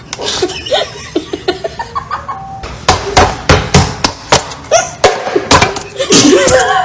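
Rapid sharp knocks, a few each second, growing loud and fast about three seconds in, with children laughing.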